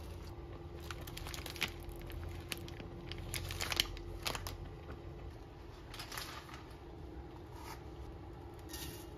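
Plastic wrapper of a packet of dried pasta crinkling and crackling as it is handled and opened, in a run of sharp crackles through the first half, with a few more later on.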